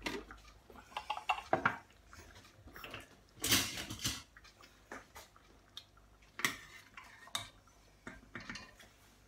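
Kitchen clatter of scattered knocks and scrapes: the plastic lid of a food processor bowl being lifted off and set down, and a spoon knocking and scraping in an enamelled pot of tomato soup. A longer, louder clatter comes about three and a half seconds in.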